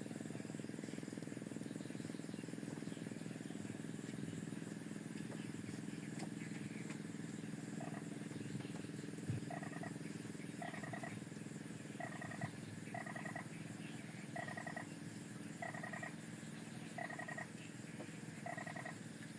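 Steady low hum, and from about eight seconds in a short trilled animal call repeated about nine times, a little over a second apart.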